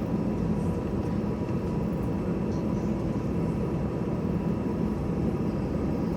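Steady cabin noise of an Airbus A320-214 taxiing, a low even rumble from its idling engines and the rolling airframe, with a faint steady whine over it.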